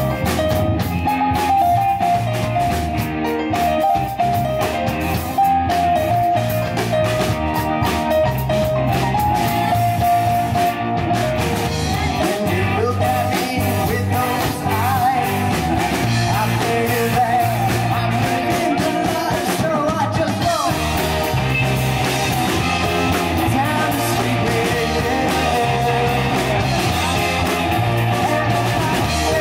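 Rock band playing live: electric guitars, drum kit and keyboard, with a steady beat.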